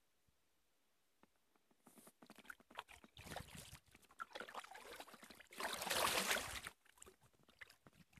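Kayak paddle working the river water: trickling and splashing with small irregular knocks, starting about two seconds in, with one longer, louder splash about six seconds in.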